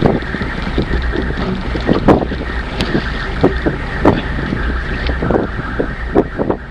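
Wind buffeting the microphone aboard a small boat, over a steady low hum, with irregular knocks and thumps every half second or so.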